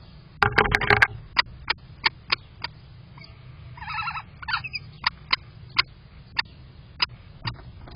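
A kestrel tapping and pecking at the nest-box camera, a string of sharp, irregularly spaced taps, about two a second. A scrabbling of claws and feathers against the camera comes about half a second in, and a short rasping sound comes near the middle.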